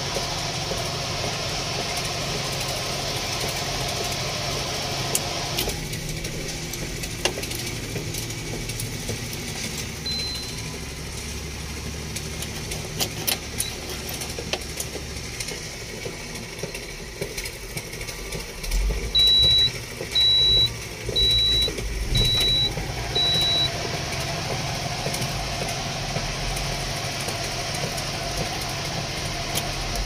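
Diesel engine of a SANY hydraulic excavator running steadily, heard from inside the cab; its note thins out a few seconds in and fills out again near the end. Midway, five short high-pitched electronic beeps sound about a second apart.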